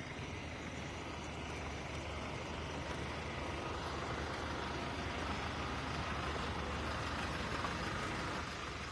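Vehicle engines idling: a steady low hum under an even hiss.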